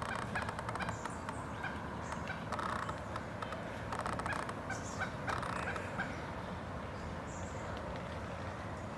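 Pileated woodpecker tapping with its bill in short bursts of rapid knocks, about three bursts, over steady outdoor background noise.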